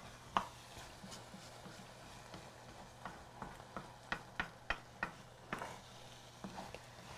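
Kitchen handling sounds: scattered light clicks and taps, about a dozen of them, from a spatula working a frying pan and scallop shells being handled, over a faint steady hum.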